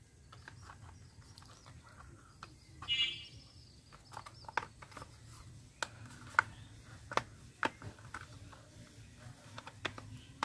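Scattered light clicks and knocks of hard plastic toy car parts being handled and pressed together, as a toy police car's body is fitted onto its chassis; about three seconds in, a brief high-pitched call.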